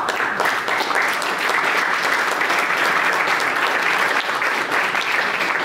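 Audience applauding: many hands clapping together, starting abruptly and holding steady, easing a little near the end.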